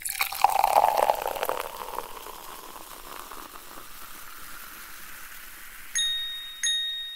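Intro sound effects: a splashing-water wash, loudest in the first second or two and fading away, then two bright chime tings about two-thirds of a second apart near the end, each ringing on and dying out.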